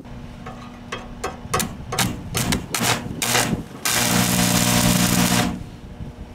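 Stick (arc) welder striking its arc in a series of short crackling sputters, then holding a steady crackling arc with a low hum for about a second and a half before it stops abruptly: tack-welding a steel plate.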